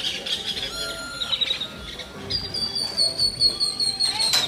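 Birds chirping and singing, with a quick run of repeated high notes in the second half. A sharp click sounds just before the end.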